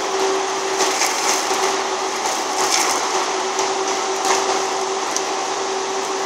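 Land-clearing machinery, a forestry mulcher and a tracked excavator, running with a steady diesel drone and hum. Over it, branches and brush crack and splinter repeatedly, most densely from about one to four and a half seconds in.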